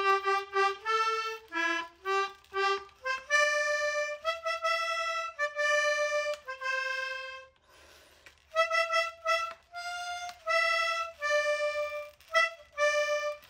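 Outro music: a solo melody played one note at a time on a reedy wind instrument, short notes at first and then longer held ones.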